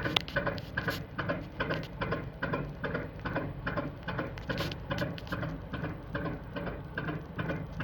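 1954 Industrie 2VD6 80 hp two-cylinder marine diesel running steadily, with an even, clattering knock at about five beats a second.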